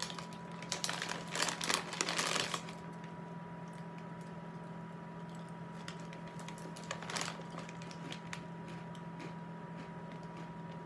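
Plastic Snyder's pretzel bag crinkling as a hand rummages in it, a busy stretch of rustling in the first couple of seconds and a short one about seven seconds in. A steady low hum with a faint high tone runs underneath.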